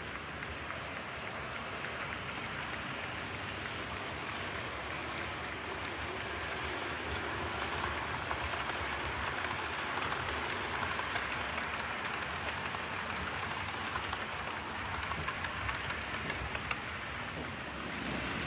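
OO gauge model trains running along the layout's track: a steady rattling rush of small wheels on rail, with many tiny clicks.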